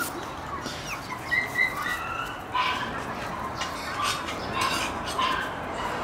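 Shiba Inu puppies, about a month old, giving a series of short high-pitched yips and squeaks as they play.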